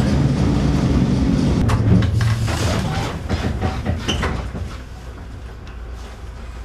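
Electric tram heard from inside the car: a steady low running rumble with rattles and clunks from its fittings, which eases off about three seconds in as the tram slows, leaving quieter knocks and rattles.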